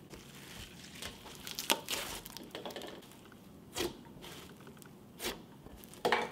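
Fingers squeezing and pressing a creamy, fluffy slime loaded with instant snow, giving sizzly, crackly squishes in several separate squeezes.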